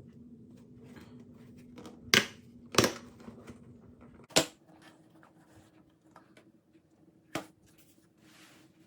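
Unboxing handling: a watch box and its packaging handled by hand, with four sharp clicks or knocks, three close together in the first half and one more near the end, and light rustling and scraping between. A faint steady hum runs underneath.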